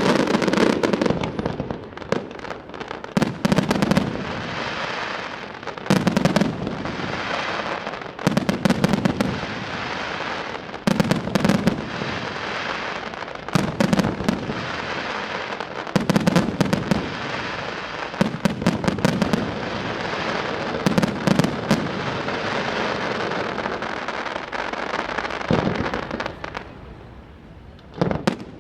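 Aerial fireworks display: shell bursts about every two and a half seconds, each with a deep boom, with dense crackling and popping between them. The bursts ease off shortly before the end, and one more burst follows.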